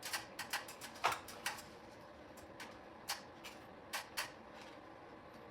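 Irregular sharp clicks and taps from small parts and tools being handled, most closely bunched in the first second and a half.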